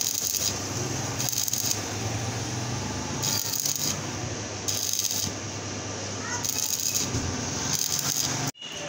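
Stick (arc) welding crackling and sizzling steadily over a steady low hum, as weld metal is built up on the loose, worn rear bearing seat of a router so it can be machined back to bearing size. The sound stops abruptly near the end.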